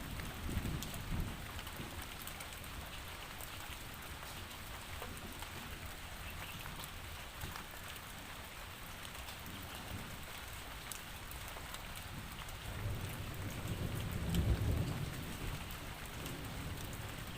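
Steady rain falling. A low rumble of distant thunder swells at the start and again about thirteen seconds in, peaking and dying away over a couple of seconds.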